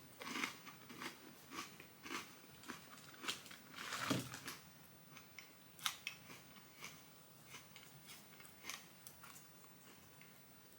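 Chewing a crunchy chocolate sandwich cookie with peppermint cream that has popping candy in it: faint, irregular crunches and crackles about twice a second, loudest about four seconds in, thinning out toward the end.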